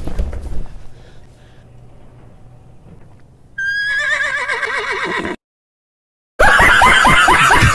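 A wrecked, hoarse voice croaks out a few words about three and a half seconds in, in a strangled warble whose pitch wobbles and falls. The voice is shot from screaming at a death metal concert. After a second of silence, loud rapid laughter breaks in near the end.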